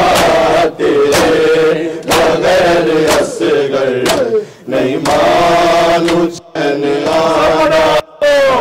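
Men's voices chanting an Urdu noha (Shia lament) in unison, in long held phrases. Sharp claps of hands striking bare chests (matam) keep time about once a second.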